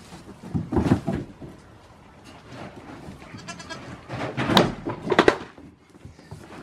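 Goats bleating, mixed with sharp knocks and scuffles of hooves on a wooden floor, loudest about a second in and again near the middle.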